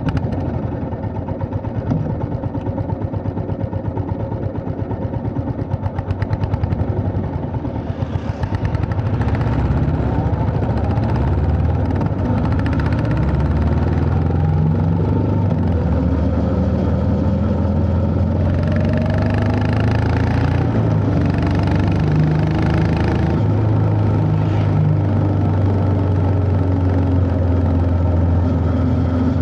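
Honda CB350 H'ness's air-cooled single-cylinder engine and exhaust, running with an even, rapid beat at low revs for the first several seconds. After that it gets louder as the bike gets under way, with the revs rising and falling through the gears.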